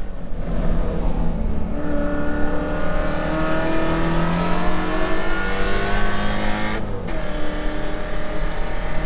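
Holden VK Commodore's 308 V8 race engine heard from inside the car, accelerating hard with its note rising through the revs. About seven seconds in there is a brief break and drop in pitch for a gear change on the T5 manual gearbox, then the engine climbs again.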